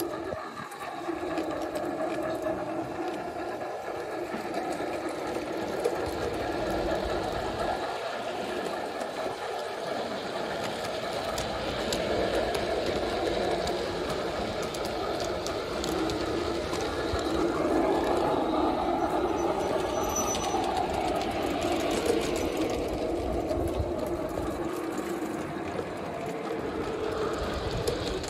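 Model Thomas the Tank Engine locomotive on a garden railway, its electric motor and gears whirring steadily as it runs along the track, the pitch drifting slowly up and down.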